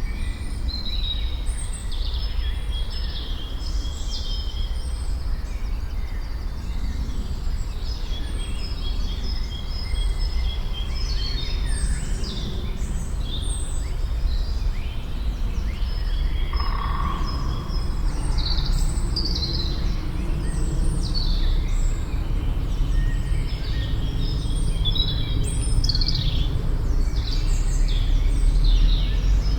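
Forest ambience: several songbirds singing, a dense run of short high chirps and trills, over a steady low rumble.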